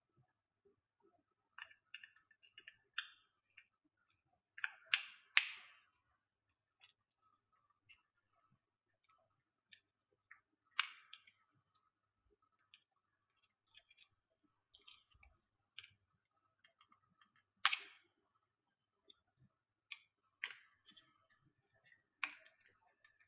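Small hard-plastic clicks and snaps from a round cable storage box as its adapter tips are pulled out of and pressed back into their moulded slots: irregular quiet taps with a few sharper snaps, three in quick succession about five seconds in.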